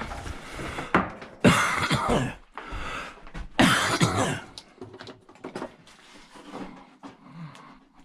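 A man coughing: two hard coughs about two seconds apart, followed by quieter coughs and throat-clearing.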